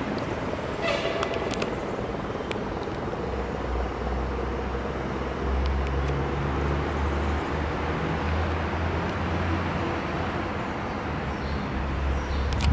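Steady outdoor urban rumble and noise, with a deeper low rumble setting in about four seconds in and easing off near the end.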